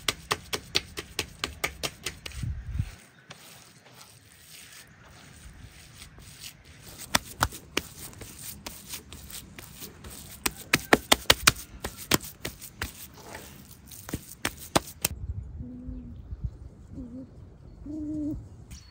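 Hands slapping and kneading minced meat on a wooden chopping block: rapid wet slaps, about four a second, in two runs. Near the end the slaps stop and a few short low calls are heard.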